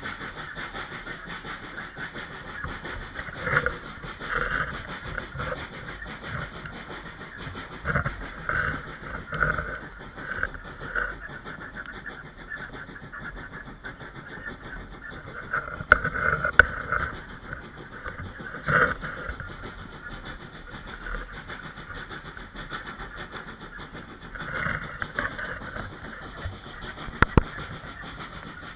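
Steam-hauled passenger train on the move, heard from an open carriage window: a steady rumble and rush of wheels on track and air, with uneven louder surges and a few sharp clicks.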